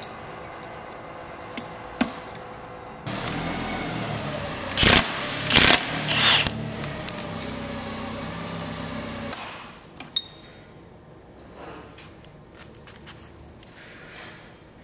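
Impact wrench spinning off the staked nut on a shaft of a Mazda RX-7 (FD) five-speed transmission. It runs for about six seconds with three loud hammering bursts in the middle, then stops, followed by light metal clicks of parts being handled.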